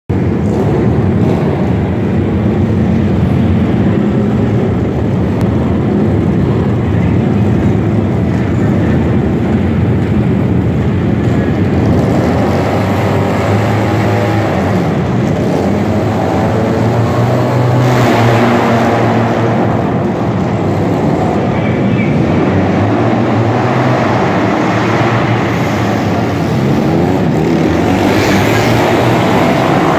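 Several vintage flat-track racing motorcycles running loud together, engines revving on the start line and then accelerating as the pack races around the dirt oval past the camera near the end.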